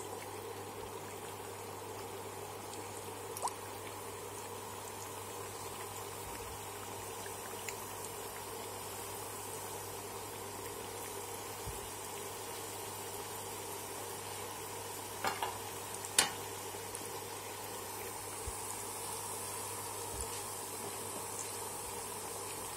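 Spring rolls deep-frying in hot oil in a karahi: a steady sizzling and bubbling, with a few sharp taps, the loudest about two-thirds of the way through.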